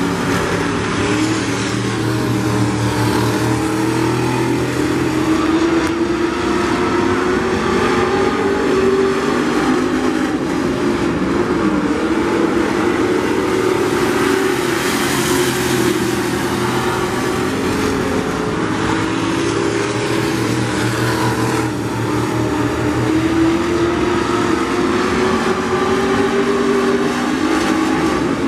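Several vintage-bodied dirt-track race cars racing in a pack, their engines running hard with a pitch that rises and falls continuously.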